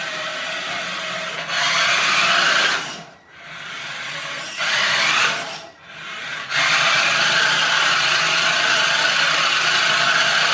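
Radio-controlled toy police car driving across a wooden floor: its small electric drive motor and gears whir, with tyres rolling on the boards. It moves in short runs with two brief stops, then keeps going from about six seconds in.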